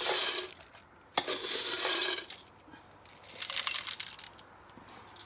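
Dry dog kibble scooped from a metal pot and poured into aluminium cooking pots, rattling and clinking against the metal in three short pours.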